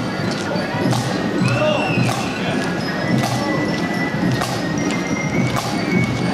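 Marching band playing a march, with drum and cymbal strokes about once a second.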